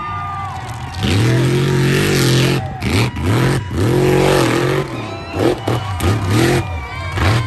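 Mega truck's big engine revving hard about a second in. Its pitch climbs and drops again and again as the throttle is worked through the jump and the dirt runs.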